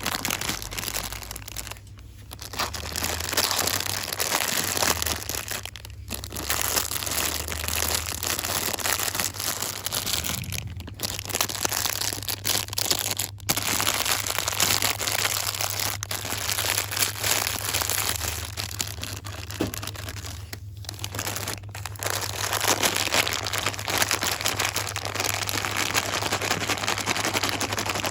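Fast, continuous crinkling and rustling of packaging handled close to the microphone, with a few brief pauses.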